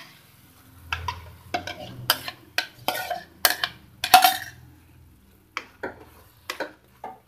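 A plastic spoon scraping mashed bottle gourd out of a bowl into a pan of masala and stirring it in: a run of knocks and scrapes against the bowl and pan, the loudest about four seconds in, then a few lighter taps near the end.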